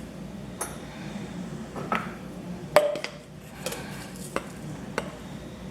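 Spoon clinking and tapping against a bowl, about six separate knocks, the loudest near the middle ringing briefly, over a steady low hum.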